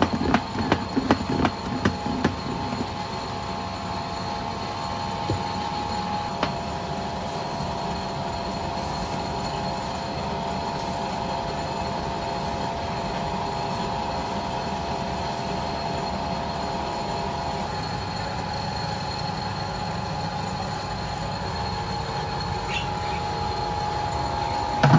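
A steady, high-pitched mechanical whine holding several fixed pitches, with a few clattering clicks over the first couple of seconds.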